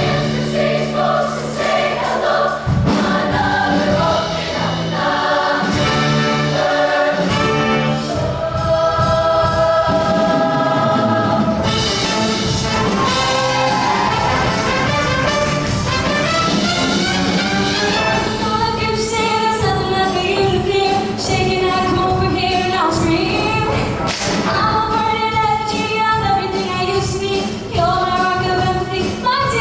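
Show choir singing in harmony over live band accompaniment with a steady beat.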